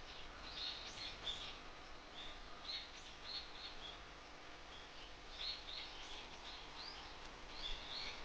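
Small birds chirping: many short, high-pitched chirps coming in quick, irregular bunches, faint over a quiet background hiss.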